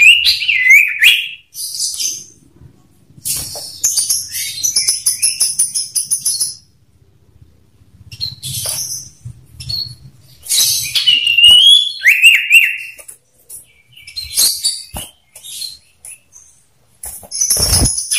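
Common iora (sirtu) calling in bursts: rapid high chattering trills and short whistles that slide up and down, with pauses of a second or two between phrases. A low thump comes near the end.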